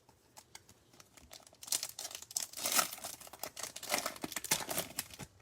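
A trading-card pack wrapper being torn open and crinkled by hand: a few small rustles and clicks, then about three seconds of dense crinkling and tearing.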